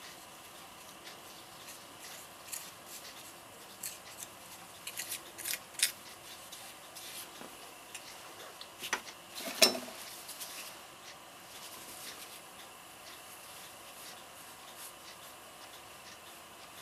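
Small clicks, taps and rubbing from hands and small tools working concrete putty into the arm joint of a concrete statue. The sounds come scattered, with one sharper knock a little past halfway.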